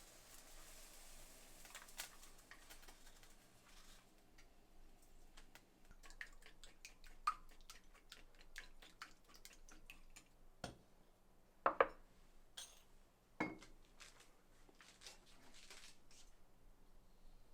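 Kitchenware handled during cooking: dishes, utensils and cookware clinking and knocking, faint and irregular, with a few louder clinks that ring briefly, the loudest about 12 s in. A soft hiss runs through the first few seconds.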